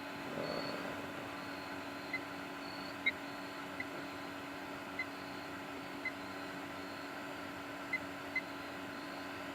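Steady electrical hum from a solar battery-and-inverter setup running a refrigerator, with about seven faint short blips scattered through it.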